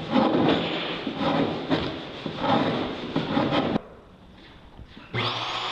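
Hand file rasping back and forth on a wooden plywood kayak cockpit coaming, about two strokes a second. About five seconds in, a handheld router starts up with a rising whine that settles to a steady pitch.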